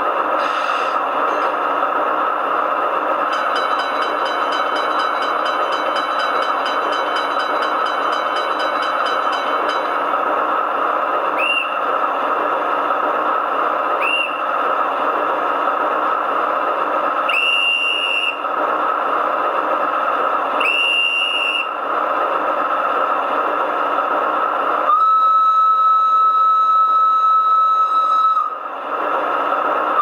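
Sound module of a Piko V36 G-scale model diesel locomotive playing through its small loudspeaker: the diesel engine idles steadily, with a clatter of coupling at the start. Midway come conductor's whistle blasts, two short then two longer ones, and near the end a long, steady locomotive whistle tone.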